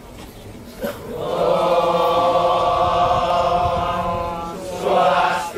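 Balinese chanting: one long note held steady at one pitch for about three and a half seconds, then a shorter second phrase near the end.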